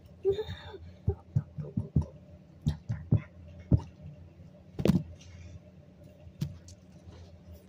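Irregular soft knocks and clicks from plush toys being handled by hand and bumped about on carpet, over a faint steady low hum.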